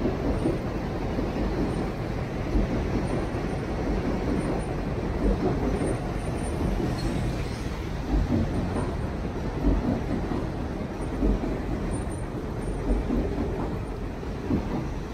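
Steady rumble of city traffic on a rain-wet street beneath an elevated railway.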